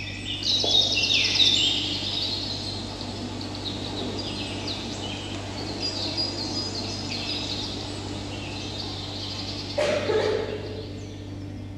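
Birdsong, many overlapping chirps and short trills, played as a recorded sound effect over a steady low hum. A brief rushing noise comes about ten seconds in.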